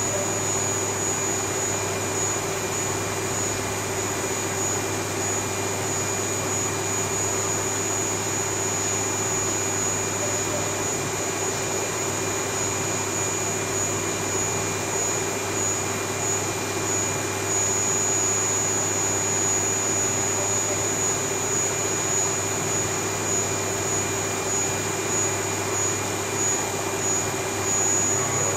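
CNC vertical milling machine spindle running with an end mill cutting an aluminum plate under flood coolant. It makes a steady high-pitched whine over a constant hiss and hum.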